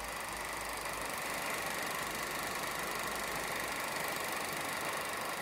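1950s Comet (Cirse) standard 8mm silent film projector running: the steady mechanical whirr of its motor and film transport.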